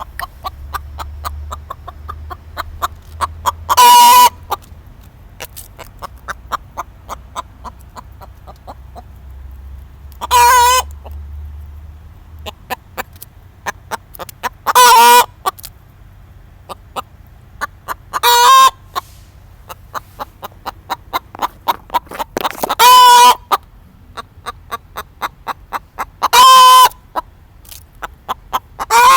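Chicken hiccuping: a loud, short, pitched call about every four seconds, seven in all, with runs of quick soft clucks several a second between them.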